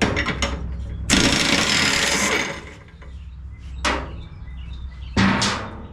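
A power tool runs in one loud burst of about a second on the stuck spindle pulley of a riding-mower deck, then two sharp knocks of metal.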